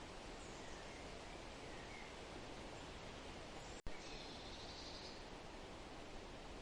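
Forest ambience: a steady hiss of rustling leaves with a few faint bird chirps, one a little clearer about four seconds in. Just before that chirp the sound cuts out for an instant and comes back with a click.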